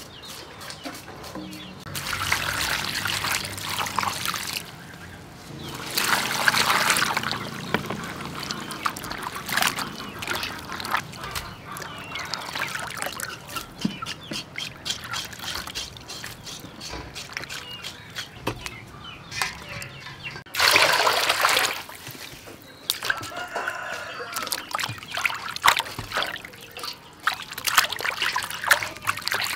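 Water splashing and trickling as a raw pork leg is washed and rubbed by hand in a metal bowl of water. It comes in several louder bursts of a second or two.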